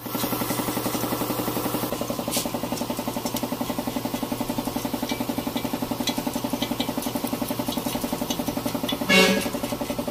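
An engine idling steadily with a rapid, even pulse. Scattered scraping clicks from a metal scraper working over an engine block sit on top. One short, loud pitched sound comes about nine seconds in.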